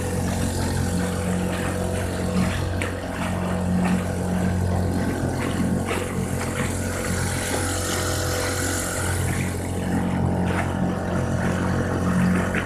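Small boat motor running steadily with a constant low hum, with water splashing and lapping against the hull.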